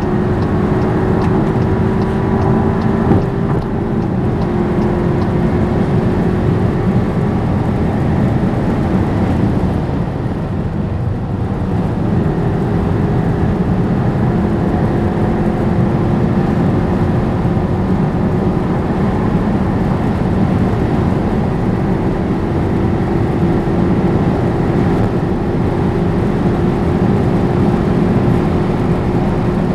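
Skoda Superb 4x4 at high autobahn speed: a steady engine drone over heavy road and wind noise, the engine note climbing slowly as the car gains speed. About ten seconds in it eases off briefly, then picks up again.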